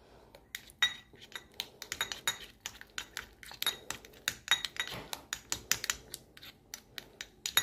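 Metal spoon stirring a thick paste in a small porcelain dish, clinking and scraping against the sides and bottom in quick, irregular taps, some with a faint ring.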